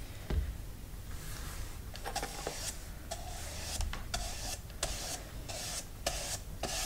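Paintbrush loaded with black poster paint being brushed across a paper plate in short, repeated strokes, two or three a second.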